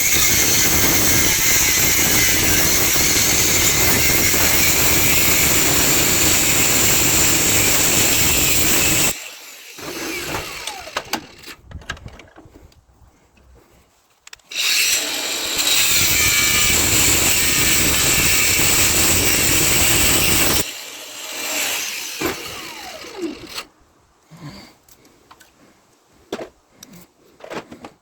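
Power tool cutting through brass scrap, running in two long steady stretches of about nine and six seconds, each stopping abruptly, with quieter handling and clinking of the pieces between and after.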